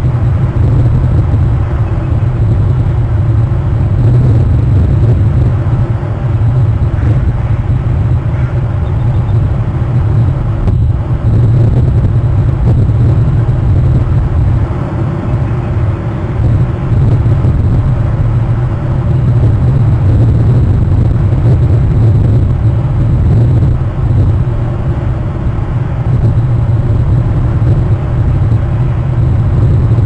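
Steady low rumble of wind buffeting an outdoor webcam's microphone, swelling and easing slightly with the gusts.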